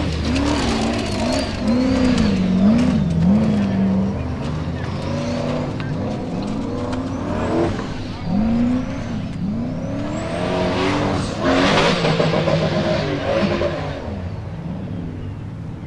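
Formula Offroad buggy's engine revving hard, its pitch swinging rapidly up and down as the driver blips the throttle, while the buggy claws up a steep dirt hill with its tyres spinning. The loudest surges come about two to three seconds in and again about eleven to twelve seconds in.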